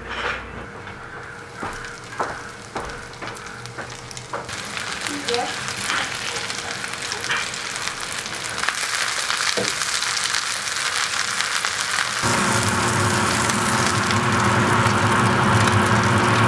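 Butter and then panko-breaded abalone strips frying in a nonstick pan: scattered crackles at first, building into a dense, steady sizzle that grows louder and steps up again about twelve seconds in.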